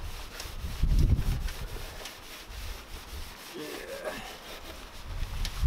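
A sheepskin wash mitt scrubbing the wet underside of a car bonnet, a rubbing swish made of quick back-and-forth strokes. A low rumble comes in about a second in and again near the end.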